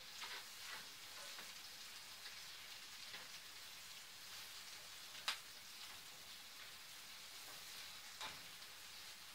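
Chopped onion frying in peanut oil and butter in a cast iron skillet: a faint, steady sizzle. The stirring utensil knocks sharply against the pan once about five seconds in and more softly a little after eight seconds.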